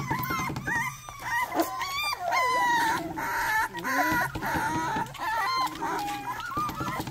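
Several three-and-a-half-week-old Rottweiler puppies whining and squealing together in short, overlapping high cries that bend up and down in pitch.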